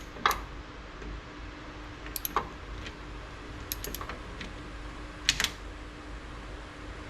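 Scattered light clicks and taps, in a few small clusters, from small metal parts and tools being handled while working on a car's transmission shift linkage.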